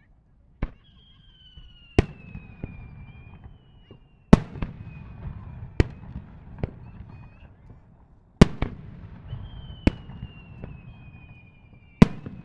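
Aerial fireworks bursting: about a dozen sharp bangs, the loudest about four and eight seconds in, with a low rumble between them. Twice a long whistle slides slowly down in pitch.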